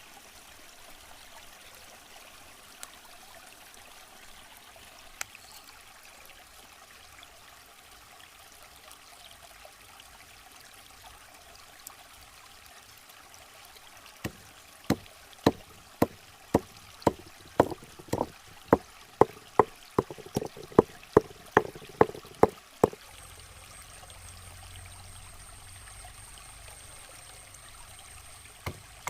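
A faint steady rush of water-like noise, then, about halfway through, a run of some twenty sharp knocks at roughly two a second that lasts about nine seconds and stops abruptly.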